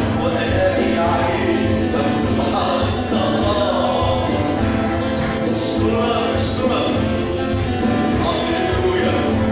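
Arabic Christian hymn sung by a lead singer and vocal group over instrumental accompaniment.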